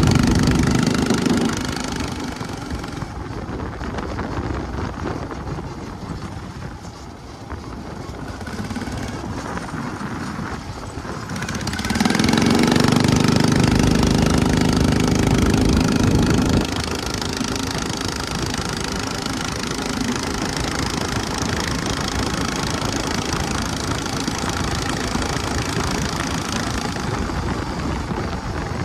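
Predator 459 single-cylinder engine driving the kart through a 780-series CVT torque converter on the move. It pulls hard at the start and eases off to a quieter drone for several seconds. It pulls hard again for about four seconds midway, then drops sharply to a steady cruise.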